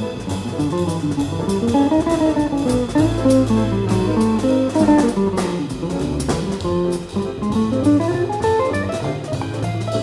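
Live jazz quartet playing a swing tune: an archtop electric guitar leads with running single-note lines that climb and fall, over walking upright bass and drums with cymbals.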